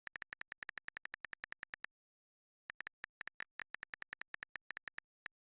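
Short, sharp clicks: a fast, even run of about eight a second for nearly two seconds, a pause, then a slower, uneven run of clicks.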